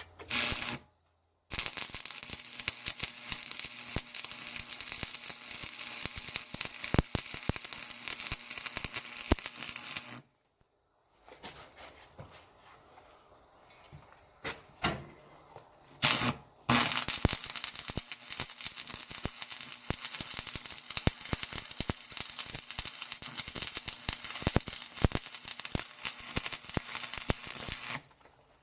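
Arc welder burning a steel rod: two long runs of steady crackling and popping, each about nine to eleven seconds, with a short burst as the arc strikes before each run.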